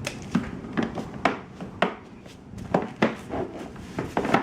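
Hard plastic parts of a Graco TurboBooster booster seat knocking and clicking together at an irregular pace as the seat is put together by hand, with the armrests being pushed into place.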